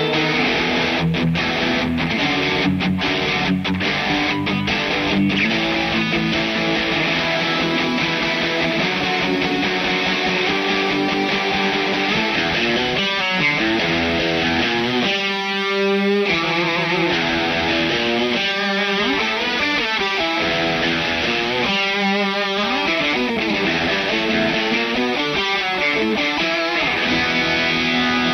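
Aria Pro II 615-GH Telecaster-style electric guitar with Alnico V single-coil pickups, played through an amplifier: a melodic line of picked notes, with bent notes about halfway through and again later on.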